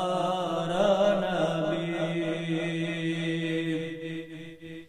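A solo male voice chanting an Urdu naat, holding a long, slowly wavering note that fades out about four seconds in.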